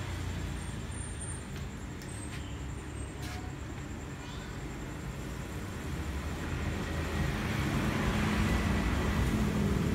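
Steady low background rumble, growing louder over the second half, with a few faint clicks in the first few seconds.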